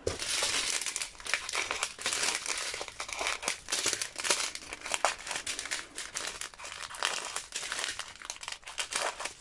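Small plastic bags of diamond-painting drills crinkling and crackling as they are handled and sorted by hand, in a dense, irregular run of rustles and clicks.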